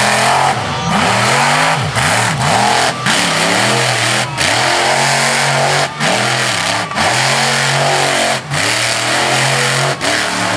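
Monster truck engine revving hard over and over, its pitch climbing and falling with each stab of the throttle, with a short drop in sound roughly every second or so as the throttle is lifted.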